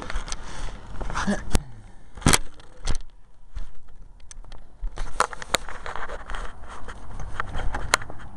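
Handling noise: a series of sharp clicks and knocks, the loudest about a second and a half to three seconds in, with rustling between them.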